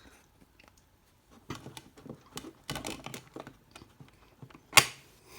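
Hands handling a plastic Blu-ray case and disc: scattered clicks and rustles, then one loud sharp snap near the end.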